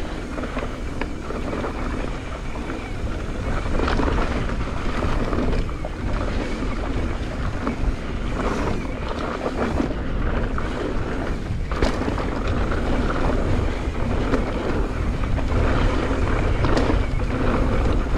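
Wind rushing over the microphone of a mountain bike riding fast down a loose dirt trail, with tyre noise and a few short clicks and knocks from the bike over the terrain.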